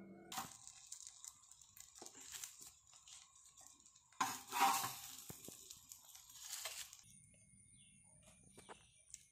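Banana leaf crinkling and rustling as it is handled, with a louder rustle about four seconds in. Faint repeated bird chirps near the end.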